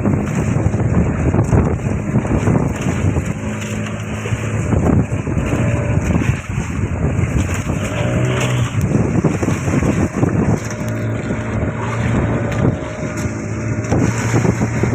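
A fishing boat's motor running steadily at sea, with wind buffeting the microphone and water noise from the waves.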